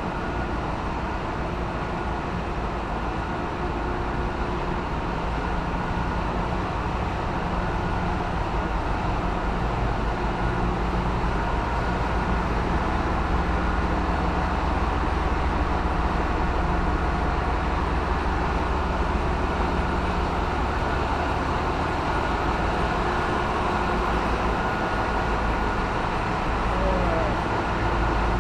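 Panamax bulk carrier engine-room machinery running: a loud, steady drone with a deep hum underneath and faint steady whines above it.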